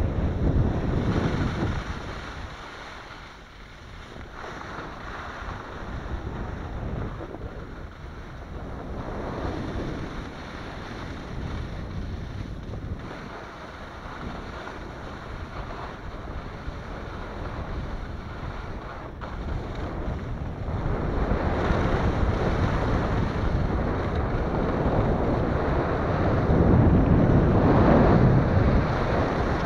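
Alpine skis scraping and hissing over crisp, crunchy piste snow, with wind rushing over the microphone. The hiss swells and fades several times, loudest just after the start and through the last third.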